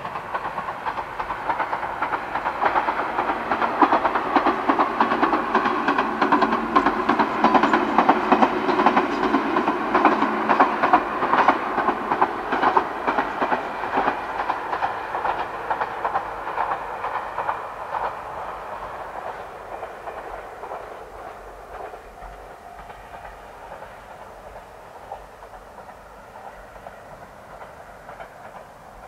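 Two-car Ichibata Electric Railway train running past, its wheels clicking over the rail joints. The sound builds to its loudest about ten seconds in, then fades as the train draws away.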